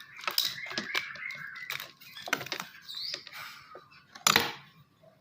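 Irregular clicks, taps and rustling from handling a plastic lotion bottle and slime-making containers, with one sharper knock about four seconds in.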